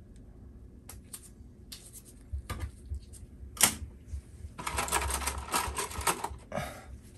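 Scattered light clicks and taps, then a sharp single click, then a dense patter of clicks lasting about a second and a half, then a few more.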